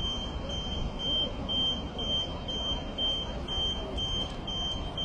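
A tow truck's electronic warning beeper sounding a steady series of high-pitched beeps, about two a second, over the low rumble of the idling truck engine and street noise.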